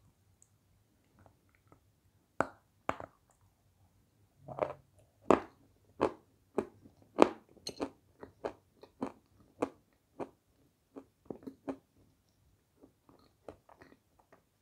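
A dry chunk of light Turkestan edible clay bitten and chewed close to the microphone: sharp, brittle crunches, densest and loudest in the middle, thinning to a few softer crunches near the end.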